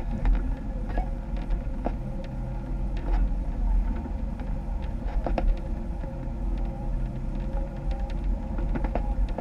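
A Jeep's engine running steadily at low speed while off-roading, with a few sharp knocks and clicks on top.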